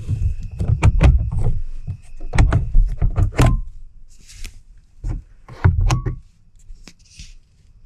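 Clicks, knocks and low thuds of a Dometic S4 camper window being handled, latches and frame worked; a burst of them in the first three seconds or so and another around five to six seconds in.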